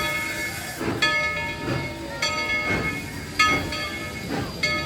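Narrow-gauge train running, heard from on board: a clank or jolt about every second or so, each followed by a ringing metallic squeal, over a steady rumble.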